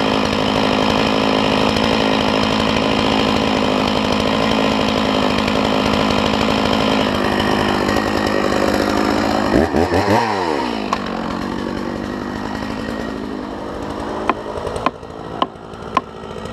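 Chainsaw running steadily, its engine note dipping and picking up again about ten seconds in. Near the end come sharp axe blows on the cypress trunk, about two a second, over the saw's continuing run.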